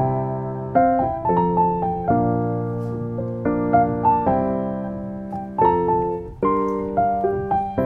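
Background piano music: a gentle melody over chords, each note struck and fading away.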